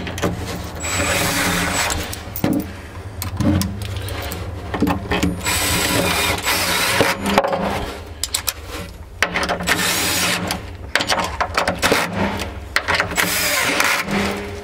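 Cordless drill driving the bolts of a jet-ski pump midshaft housing into the hull, in several short runs of a second or two, with clicks and knocks of handling between.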